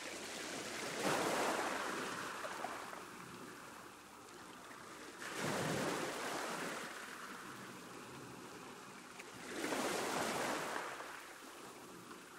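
Ocean waves breaking on a shore: three waves wash in, about a second in, at about five seconds and near ten seconds, each a rushing swell that fades back into a softer steady wash.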